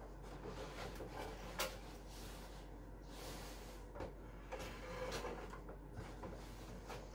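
Quiet rubbing and scraping as a large flat-screen TV is handled against the wall while being hung on its wire hook, with a sharp knock about a second and a half in.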